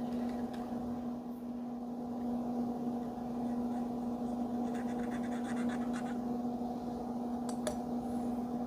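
Light scratching of a circuit board being wiped clean of soldering flux residue, over a steady electrical hum.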